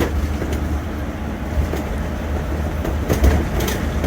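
Road noise inside a moving vehicle's cabin: a steady low rumble of tyres and engine, with scattered light knocks and rattles, a few of them close together a little after three seconds in.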